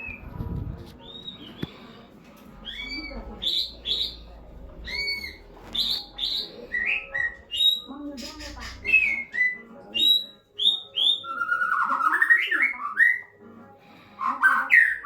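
White-rumped shama calling: a run of short, arched whistled notes, often in quick pairs, then lower, harsher sweeping notes about three-quarters of the way through and again near the end.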